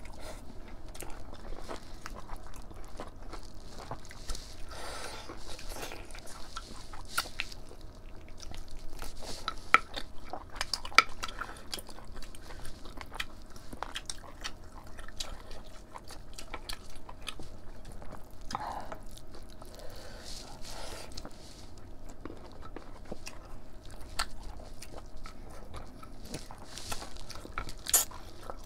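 Close-up eating sounds of rice and mutton curry eaten by hand: chewing and the wet sound of fingers mixing rice and curry on the plates, with many short sharp clicks.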